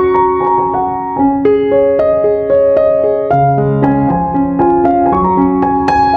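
Background piano music: a melody of separate notes over held lower notes.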